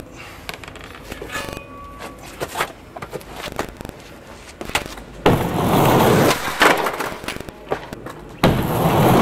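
Skateboard sounds on concrete. For about five seconds there are scattered light knocks and clacks of the board. Then the wheels roll loudly on the concrete from just past the middle, with a sharp knock of the board about a second later, and roll loudly again near the end.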